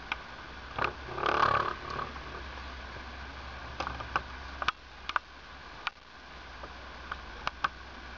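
Bench handling noise: scattered sharp clicks and one louder noisy burst lasting about a second, starting about a second in, over a steady low hum.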